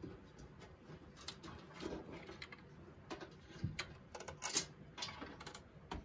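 Faint, irregular clicks, taps and light scrapes of an MSI 970A SLI Krait Edition motherboard being worked loose and lifted out of a metal PC case, with one louder clack about four and a half seconds in.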